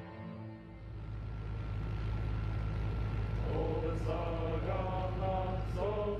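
Steady low drone of a helicopter, heard from inside the cabin, after a passage of music fades out. From about three and a half seconds in, a voice chanting in drawn-out notes rises over the drone.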